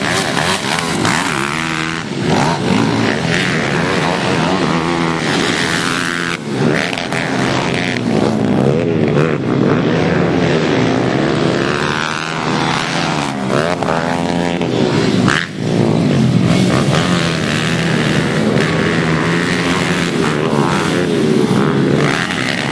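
Several pit bike engines racing together, revving up and down over and over, their pitch rising and falling with each throttle change and gear shift.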